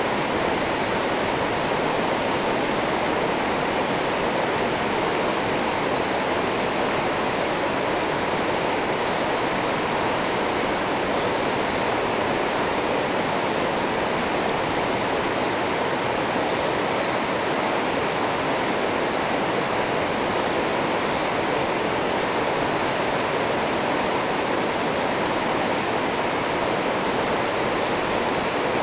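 River rapids rushing steadily: a constant, even wash of white water pouring over rocks.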